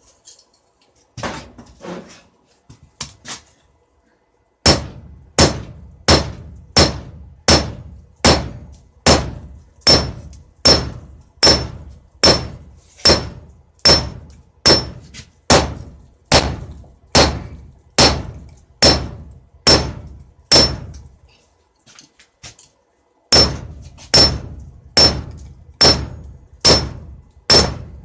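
Blacksmith's hammer striking a knife blank on an anvil, forging the blade. A few light, uneven taps first, then steady blows at about one and a quarter a second, each with a short high ring; the hammering stops for about two seconds near the end and starts again.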